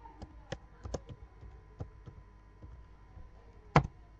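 Typing on a computer keyboard: a run of uneven keystroke clicks, then one louder click near the end.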